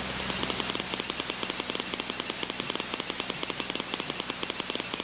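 Aerobatic plane's piston engine idling, heard through the cockpit intercom as a low steady hum with rapid, even ticking, about ten ticks a second.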